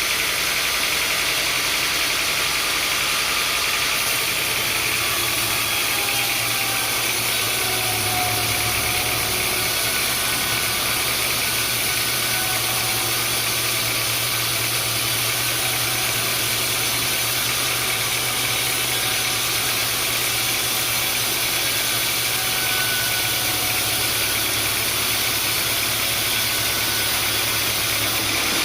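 Sawmill machinery running steadily with an engine-like hum. A deeper hum comes in about four seconds in and fades away near the end.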